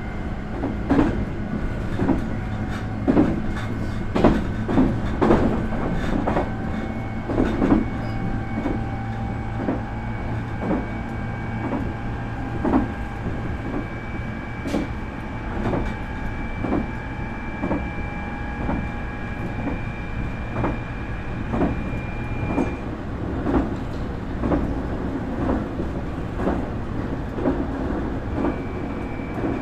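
Onboard running sound of a Nankai 8300 series car with IGBT VVVF inverter control and totally enclosed induction motors. High-pitched motor and inverter whine tones rise slowly; the highest cuts out about two-thirds of the way through and comes back near the end. The wheels clack over rail joints under a steady rumble.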